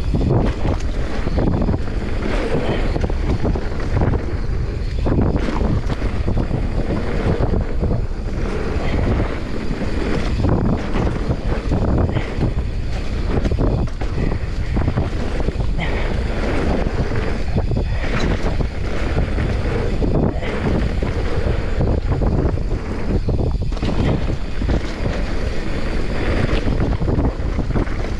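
Wind buffeting the microphone and mountain bike tyres rumbling over the trail during a fast downhill descent, with frequent short knocks and rattles from bumps in the track.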